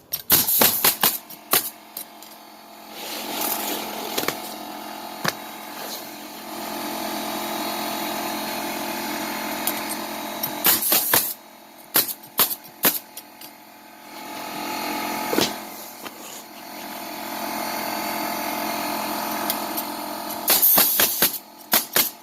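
Roofing nail gun firing in three quick clusters of sharp shots, a row of nails driven through shingles each time, with a steady machine hum in the gaps between the bursts.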